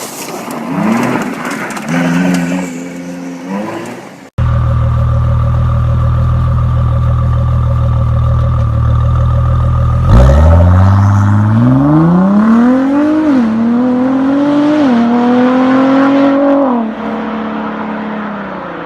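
Sports car engines: a few seconds of short revs, then a cut to a loud, steady, deep idle. About ten seconds in, the car accelerates hard, its engine pitch climbing and dropping back at two upshifts, before the driver lifts off near the end.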